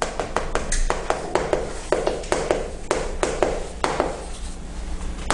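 Chalk writing on a chalkboard: an irregular run of sharp taps, about four a second, as the strokes of a line of text are put down.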